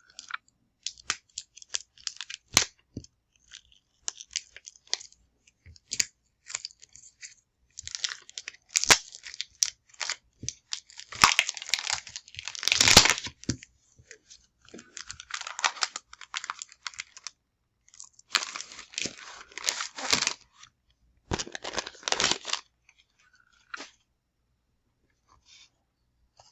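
Packaging of a pack of chipboard phrase stickers being opened and the stickers pulled out: irregular bursts of crinkling and tearing with scattered sharp ticks, loudest around the middle.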